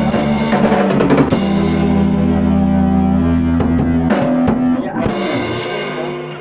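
Band playing with drum kit and guitar: busy drumming for about the first second, then a long held chord with a few more accented hits, the sound dying away near the end like a song's closing chords.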